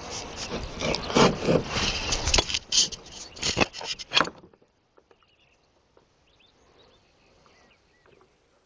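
Metal clamps being fitted and tightened on a wooden gate board: a run of irregular knocks, clacks and scrapes that cuts off suddenly about four seconds in. A faint quiet background with a few small chirps follows.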